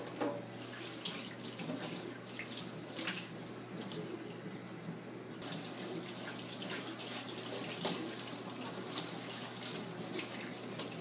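Kitchen tap running into a stainless steel sink while a sponge scrubs the blackened, oil-quenched knife blade under the stream, in irregular scrubbing strokes that grow busier about halfway through.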